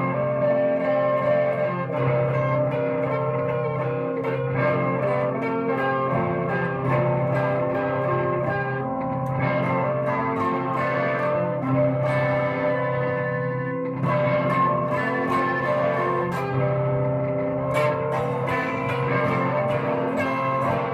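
Guitar music: ringing notes that change every second or so over a steady low note.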